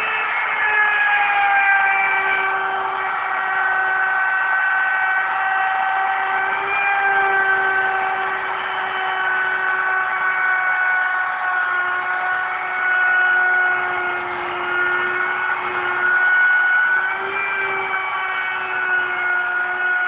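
Electric router running with a steady high whine, cutting a chamfer in MDF; the pitch sags a little and recovers now and then as the bit takes the cut.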